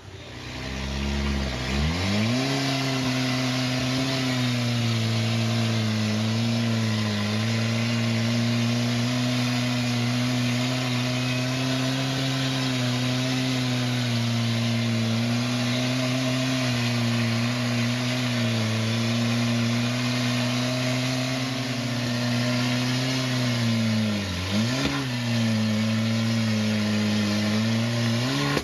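Rock-crawling buggy's engine revving up about two seconds in and held at steady high revs under load as it works up a rock ledge, dropping briefly near the end before revving up again.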